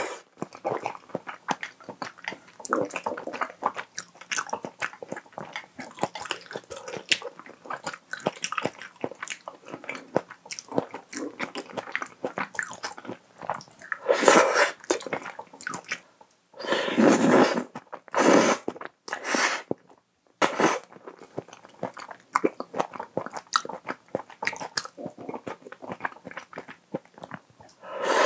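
Close-miked wet chewing and slurping of spicy Toowoomba pasta with shrimp in a cream sauce, with small mouth clicks throughout. There are a few louder, longer slurps a little past halfway.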